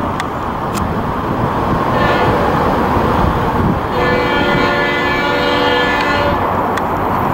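Florida East Coast Railway diesel locomotive's air horn sounding for a grade crossing as the train approaches: a short blast about two seconds in, then a longer blast from about four seconds to about six, over the steady rumble of the diesel engines.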